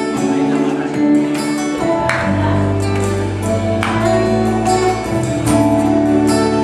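Live band playing a slow Moluccan gospel song: sustained keyboard chords over a bass line that comes in about two seconds in, with percussion hits about two and four seconds in.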